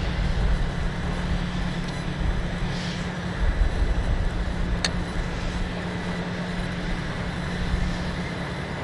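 Steady low rumble with a constant hum, and one sharp click about five seconds in.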